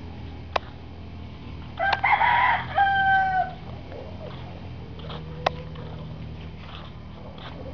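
Rooster crowing once, about two seconds in, ending on a long held note.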